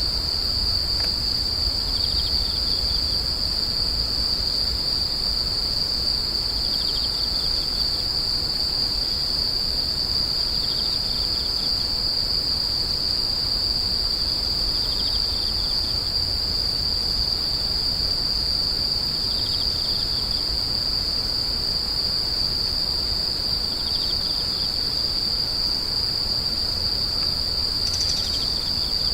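Grass insects (crickets) trilling in one continuous high, steady buzz, with short chirps from another insect about every four seconds, over a low background rumble.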